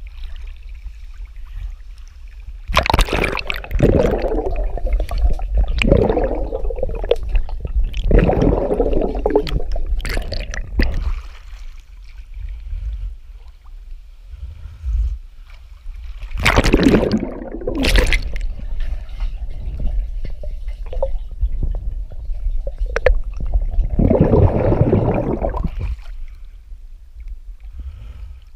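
Pool water sloshing and gurgling against an action camera at the water's surface, in several surges: about 3 s in, around 8 to 10 s, near 17 to 18 s, and around 24 to 26 s. A steady low rumble runs underneath.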